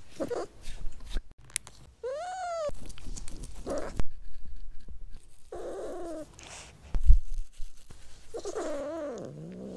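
Domestic cat meowing in protest while its teeth are cleaned with a cotton swab: several drawn-out meows that rise and fall in pitch, with a few sharp handling knocks between them.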